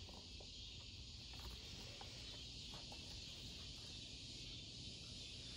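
Faint steady chirring of an outdoor insect chorus, with a few faint light taps scattered through it.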